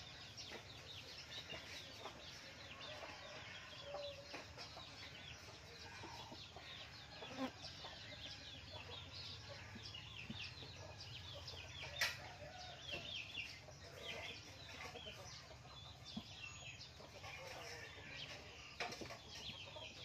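Small birds chirping faintly and continuously, many short overlapping calls, over a low steady background hum. A single sharp click comes about twelve seconds in.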